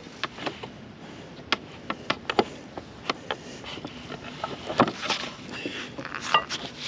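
Scattered knocks and clicks as a farm jack's steel bar and plywood boards are carried and shift against each other, the louder knocks coming a few at a time.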